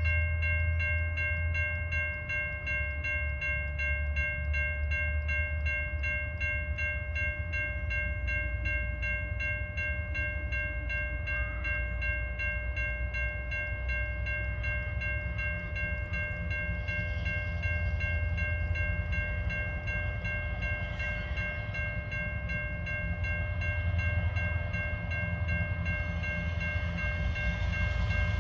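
Tasrail diesel locomotives 2051, TR15 and TR17 running as they roll downgrade with a freight train: a steady low engine rumble with a constant high whine over it.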